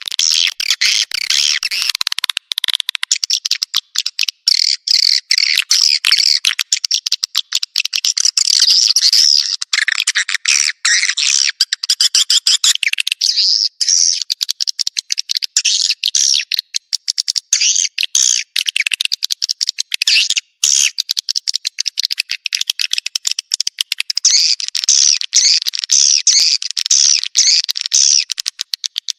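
Swiftlet lure call ('suara panggil'): dense, high-pitched chirping and twittering of edible-nest swiftlets in rapid, almost unbroken runs, cut off sharply below the upper range. It is a calling track played in a swiftlet house to draw the birds in to roost and nest.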